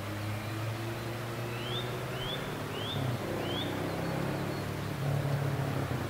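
Eurasian nuthatch singing: a short series of four rising whistled notes, about two a second, starting about a second and a half in. A steady low engine hum runs underneath and is the louder sound.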